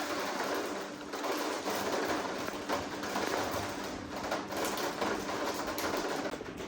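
Steady rain falling, an even hiss with dense small patter.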